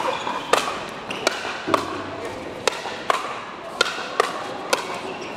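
Pickleball rally: paddles striking the hard plastic ball in a quick exchange, about nine sharp pocks at roughly two a second.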